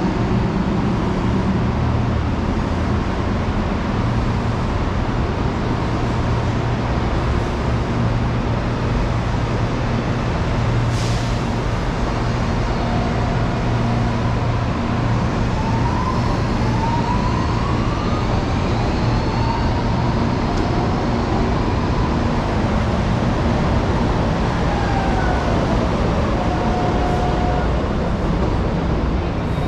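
Steady loud rumble of electric commuter trains and traffic at a busy rail station. Short rising and falling whines come through it, and there is a sharp click about eleven seconds in.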